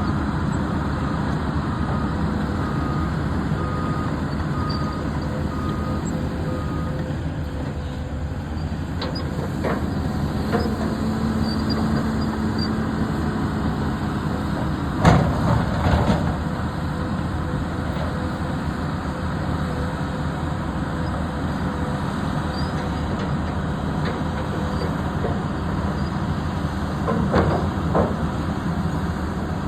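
John Deere 670P excavator's diesel engine running steadily, with an alarm beeping in even pulses for the first several seconds. A brief rise in the engine note comes about a third of the way in, and a few sharp knocks sound around the middle and again near the end.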